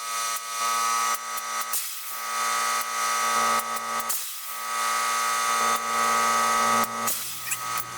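Electric tire inflator's compressor running with a steady buzzing hum and hiss, pumping up a dirt-bike tire and tube towards about 50 psi to seat the bead. It dips briefly about two, four and seven seconds in.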